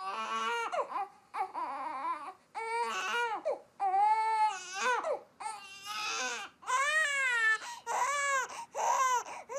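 A small baby crying in a run of short wails, about one a second, each rising and then falling in pitch.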